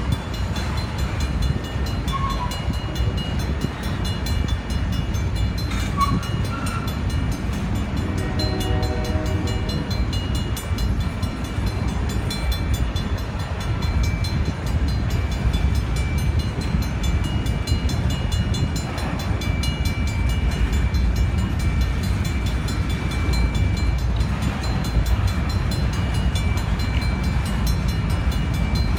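Union Pacific freight train's tank cars and covered hopper cars rolling past: a steady, heavy rumble of steel wheels on rail.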